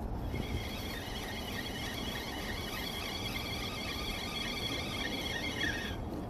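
Wind rumbling on the microphone, with a steady high whine of several tones over it that stops near the end.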